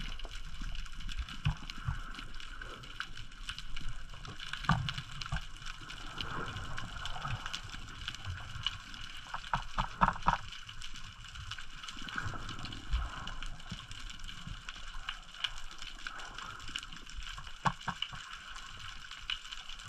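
Muffled underwater ambience picked up by a diving camera: a steady watery hiss with scattered short clicks and knocks, including a quick cluster about halfway through and a couple more near the end.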